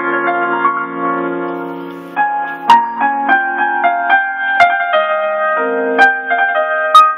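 Electronic keyboard on a piano voice playing a slow melody over chords. A chord is held and dies away over the first two seconds, then the melody picks up again, with a few sharp clicks on some of the notes.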